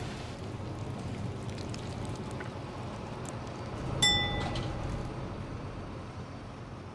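Moving bus heard from inside the cabin, a steady low engine and road noise. About four seconds in, the bus's stop-request bell dings once, a bright chime that rings out briefly.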